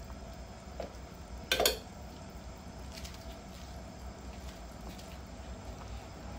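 A pot of chicken tinola broth simmering, with a steady low bubbling. A single sharp clink about a second and a half in, and a faint tick just before it.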